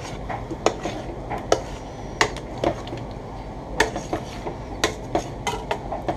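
Long-handled metal spoon stirring chicken curry in a stainless steel stockpot. The spoon knocks and scrapes against the pot in irregular sharp clinks, about ten over a few seconds.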